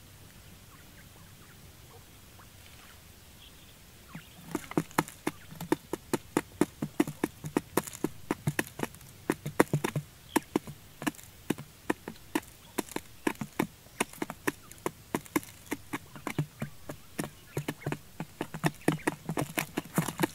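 Quail pecking grain off a flat trap platform: rapid, irregular sharp taps, several a second, starting about four and a half seconds in.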